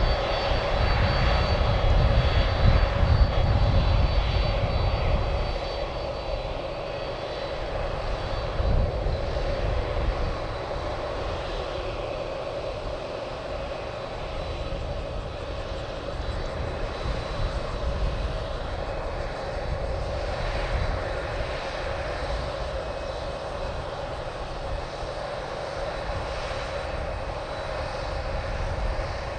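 Boeing 767's twin turbofan engines running at taxi power: a steady whine with high tones over a low rumble. The rumble eases after about five seconds as the jet rolls past.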